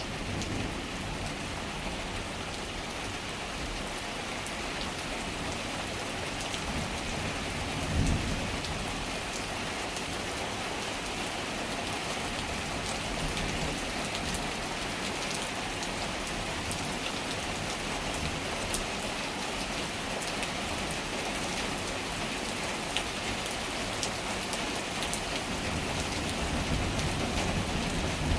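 Steady rain falling on surfaces during a thunderstorm, with scattered sharp drip ticks. A low clap of thunder comes about eight seconds in, and thunder rumbles again near the end.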